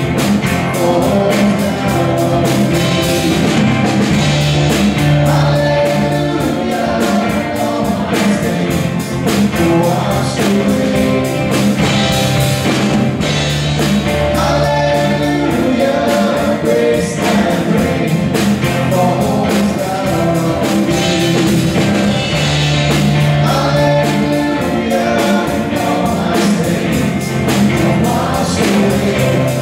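Live worship band playing a song: a lead vocalist singing over acoustic guitar, keyboard and drums.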